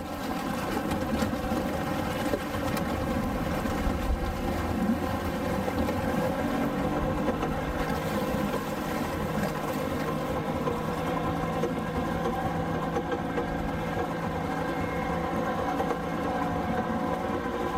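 50 hp outboard motor idling steadily.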